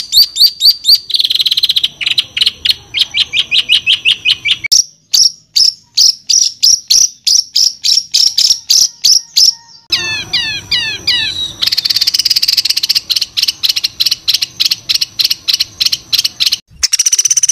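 Songbird song made of harsh, rapid-fire repeated notes, in separate phrases joined by abrupt edits. There are several quick trills of sharp high notes, a short run of down-slurred whistles about ten seconds in, and then a very dense, fast high trill.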